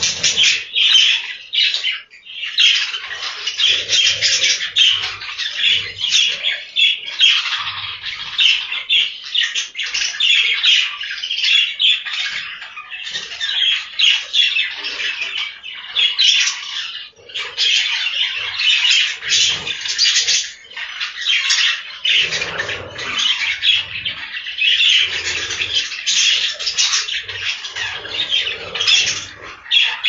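A flock of budgerigars chattering and squawking without a break, with wing flaps now and then as birds fly between the perches and the seed bowl.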